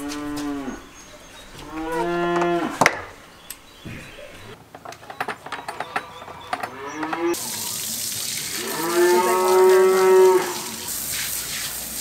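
Cow mooing: four long moos, each rising then falling in pitch, the last one near the end the longest and loudest.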